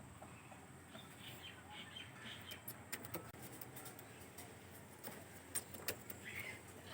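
Pet parrot making a series of soft chirps, with a few sharp clicks around three seconds in and again near six seconds.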